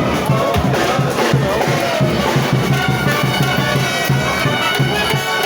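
Frevo played by brass instruments, with a quick, steady drum beat.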